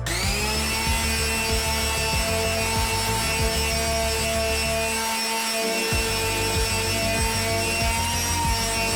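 An electric power tool's motor spins up at the start and then runs steadily, rubbing against wood.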